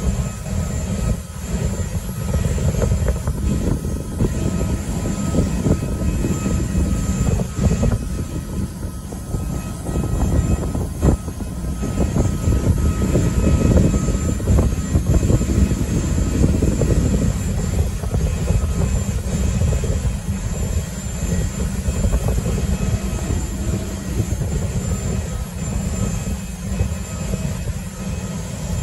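Jet airliner noise: a steady low rumble with a thin steady whine over it, swelling somewhat in the middle.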